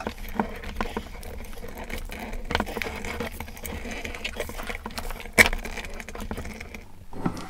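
Hands working a power cord and metal conduit fitting through a hole in a metal bracket and plastic box: rubbing and scattered small clicks, with one sharper click about five and a half seconds in.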